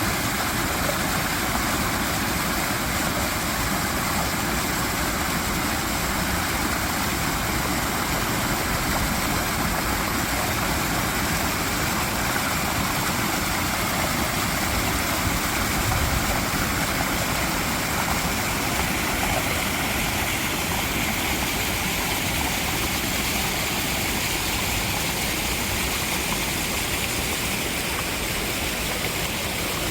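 Mountain valley stream, water rushing steadily without a break; its hiss brightens a little after about twenty seconds.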